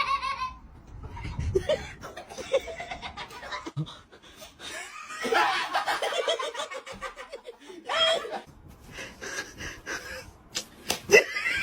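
People laughing and snickering, in several bouts, the longest about halfway through.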